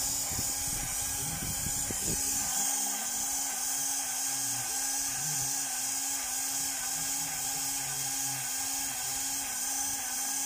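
Lincoln cordless battery grease gun running continuously, its electric motor and pump whirring with a steady rhythmic pulse as it pumps grease into a fitting on an excavator.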